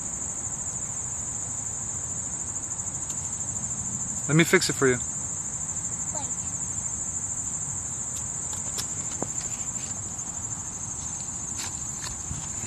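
Steady high-pitched insect chorus with a fine rapid pulse, running unbroken. A brief voice cuts in about four and a half seconds in, and a few light clicks come near the end.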